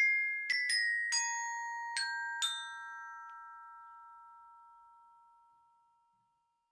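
Glockenspiel: metal bars struck with mallets in a short phrase of about six high, bell-like notes. The last notes ring on and fade away to silence.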